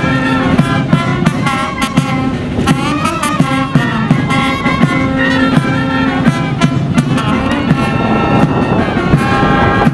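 Ceremonial marching band playing outdoors: held brass notes that step up and down in a tune over regular drum beats.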